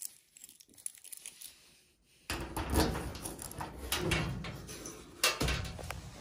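Locker door being unlocked and opened: a few small clicks, then from about two seconds in a few seconds of rattling and handling noise, with a sharp click near the end.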